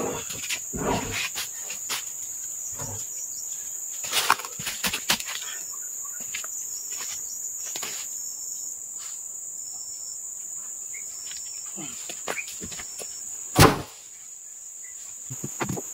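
Steady high-pitched chirring of insects, with scattered knocks and clatters and one loud thump about thirteen and a half seconds in.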